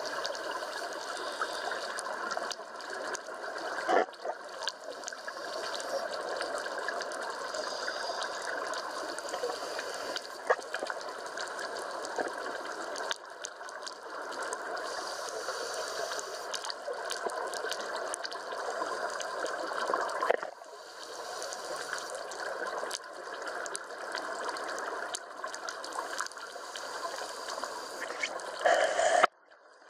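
Underwater ambience: a steady, muffled rushing hiss of water, with a few sharp clicks and knocks, that cuts off abruptly near the end.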